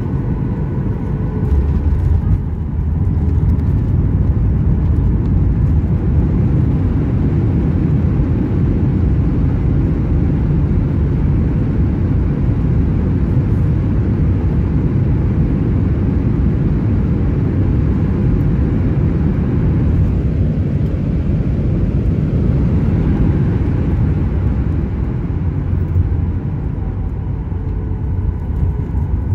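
Cabin noise of a Boeing 737-800 taxiing: a steady low rumble from its CFM56 engines at idle and the wheels rolling on the taxiway, with a faint thin hum near the start.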